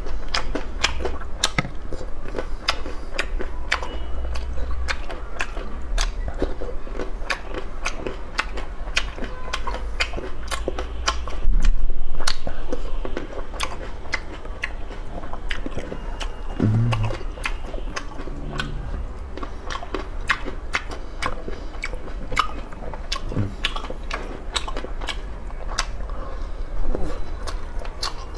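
Close-up mouth sounds of a person biting and chewing food: a steady stream of sharp, wet clicks and crunches, louder for a moment about twelve seconds in.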